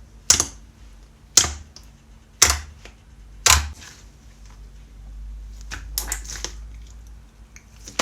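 Slime being pressed and poked: four sharp pops about a second apart, then a quicker cluster of smaller clicks.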